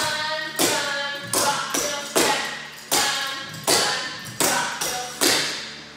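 Clogging shoes with metal taps striking the floor in a dance step sequence: about ten sharp taps in an uneven rhythm, each ringing briefly.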